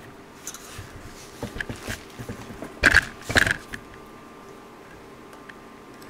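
Handling noise: a scatter of light knocks and rustles, the loudest two close together about three seconds in, over a faint steady hum.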